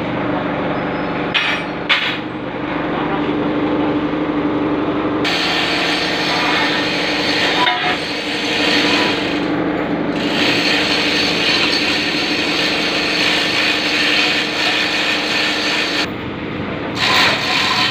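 Steady machine hum with two sharp metallic knocks near the start, joined about five seconds in by a loud continuous hissing, rasping noise that runs for about ten seconds with a brief break in the middle.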